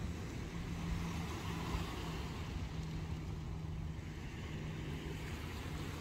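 Low, steady engine hum with a rumble underneath from the car ferry Bute running at her berth.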